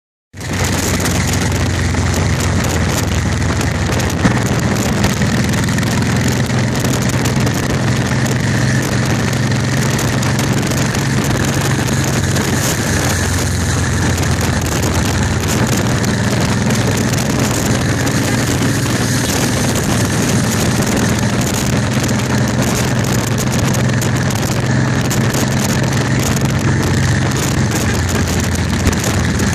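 Cruiser motorcycle engine running at a steady cruising speed, its even hum unchanging, heard under wind and road noise buffeting the microphone of a camera riding on the bike.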